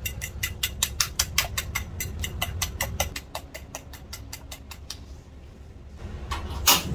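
Metal utensil beating eggs against a ceramic bowl, quick clinking strokes about five or six a second that stop about four and a half seconds in. Near the end, one loud sharp click with a rush as a gas stove burner is lit, over a steady low hum.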